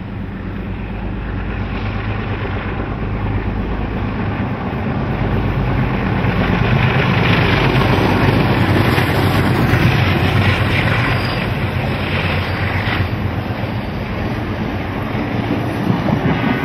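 Two NSW 44 class Alco diesel-electric locomotives, with Alco 251 V12 engines, approaching and passing close. Their steady engine drone grows louder to a peak about eight seconds in, then fades a little as they go by.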